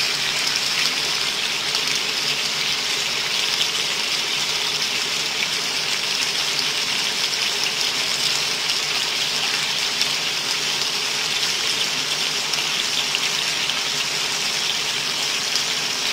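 Steady sizzling of chicken and vegetables stir-frying in sauce in a pan, nearly cooked.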